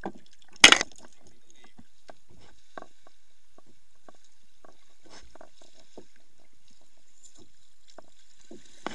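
Kayaks being paddled on a lake: small paddle splashes and water lapping against the hulls. A single sharp knock about a second in is the loudest sound.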